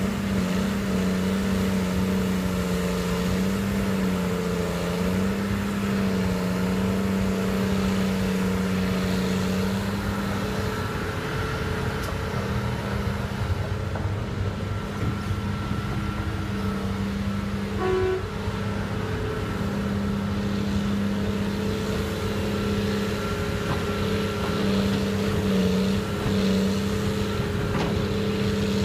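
Diesel engine of a Liebherr 952 hydraulic excavator running steadily under working load while it digs and loads a dump truck, with its pitch wavering slightly during the first several seconds.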